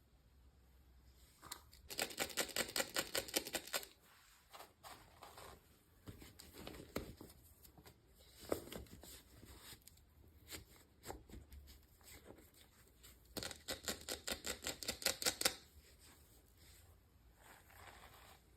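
Handling of a toy doll and its packaging, with two runs of rapid, evenly spaced clicking at about eight clicks a second, each lasting about two seconds. Soft knocks and rustles come between the runs.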